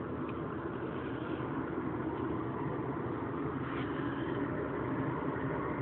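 Steady low droning hum heard outdoors, with no clear rhythm or change; it is the unexplained 'strange sound' the man hears and cannot place in the sky.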